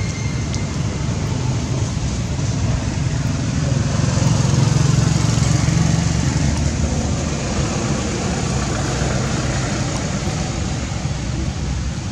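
A motor vehicle's low rumble over steady outdoor noise, swelling about halfway through and easing off again as it passes.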